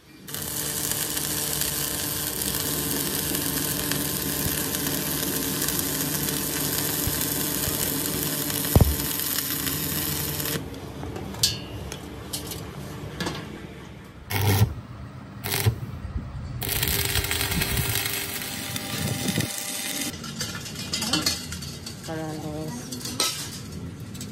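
Stick (arc) welding the butt seam of a rolled steel sheet hoop: a steady crackling hiss with a faint hum for about ten seconds, then the arc stops and a few knocks of metal follow.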